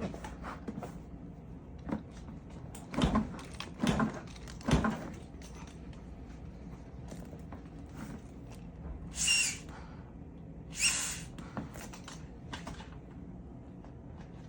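Improvised Morse-code signal of taps and knocks: three loud thumps about a second apart early on, then after a pause two short rushes of air about a second and a half apart, with fainter taps around them. It spells out the CPR compression-to-ventilation ratio for a patient without an advanced airway.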